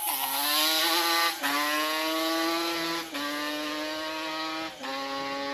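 An ATV engine at full throttle, accelerating away through the gears. There are three gear changes, each a brief dip after which the pitch drops and climbs again, and the sound slowly fades as it goes.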